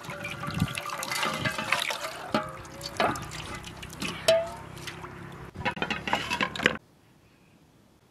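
Water splashing and dripping in a metal bowl as a whole raw chicken is rinsed and handled, with wet slapping and clicking sounds; it stops abruptly near the end.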